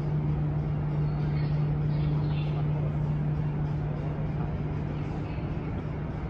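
Ship's engines running with a steady, loud low hum under a rumble of wind and water noise.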